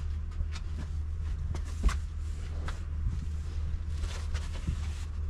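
Pond underlay fleece (260 GSM) being unrolled and handled across the concrete pond floor: scattered rustles and scrapes, with one thump about two seconds in, over a steady low hum.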